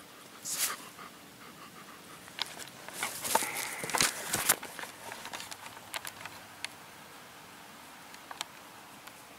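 Labrador–shepherd mix dog panting, with a burst of loud scuffling knocks about three to four and a half seconds in, then a few single clicks.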